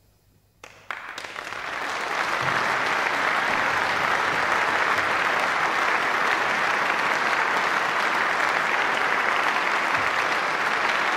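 Concert audience applauding after the orchestra's last note: a brief hush, then the first claps just under a second in, swelling within a second or so into full, steady applause.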